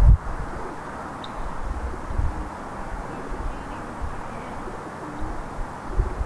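Outdoor street ambience: a steady low rumble with a low thump at the start and a couple of softer ones later, and a few faint bird calls.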